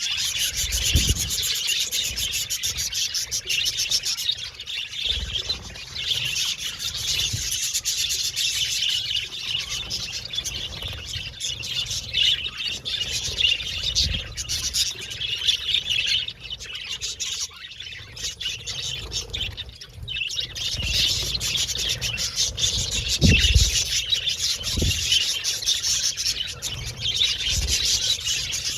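A flock of budgerigars chattering and chirping continuously, many birds at once, with a few soft low thumps.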